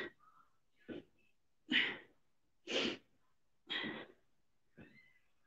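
A woman's short, forceful exhalations, about one a second, in time with the reps of cross-body mountain climbers.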